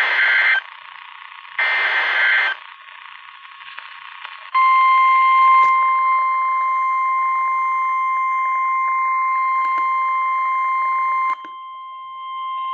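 NOAA Weather Radio Emergency Alert System activation: the last two of three short, buzzy SAME data bursts, then after a brief pause the steady high-pitched 1050 Hz warning alarm tone, which drops in level near the end. The alarm tone signals that a warning follows, here a special marine warning for severe thunderstorms.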